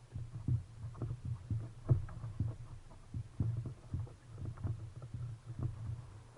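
Underwater sound: a low rumble of moving water with many irregular clicks and soft knocks, a few every second.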